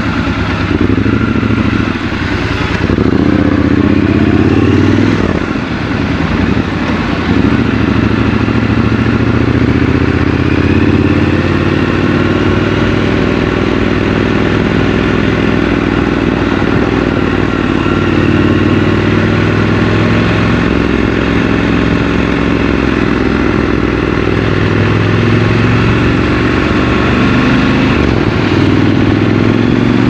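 Triumph Scrambler 1200 XC's 1200 cc parallel-twin engine running under way in traffic. Its pitch rises and falls a few times in the first six seconds as the bike pulls away and shifts, then holds fairly steady while cruising.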